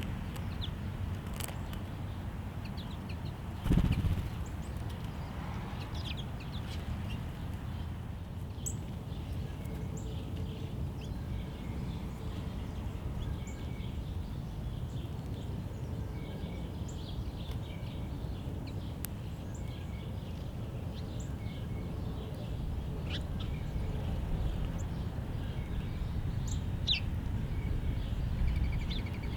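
Small songbirds giving short, scattered chirps and chip calls over a steady low background rumble, with one brief thump about four seconds in.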